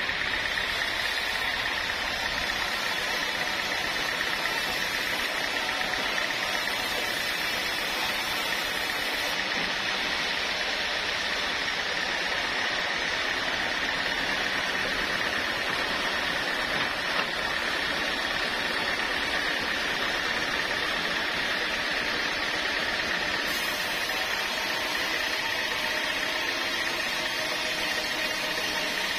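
Sawmill machinery running steadily: a constant mechanical noise with a high whine held at one pitch.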